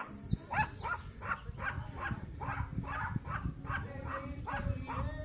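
An animal calling over and over in short, quick calls, about three a second.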